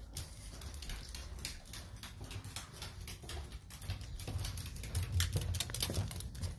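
Footsteps and dog claws pattering on a hard tiled floor: quick light clicks over low thumps, busier and louder in the second half.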